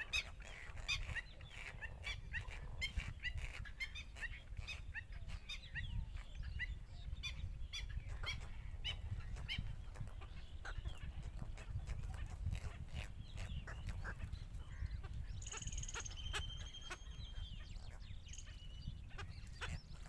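Birds calling around a nesting site: many short, high chirps and calls, dense at first and thinning out later, with a longer whistling tone about three-quarters of the way through, over a steady low rumble.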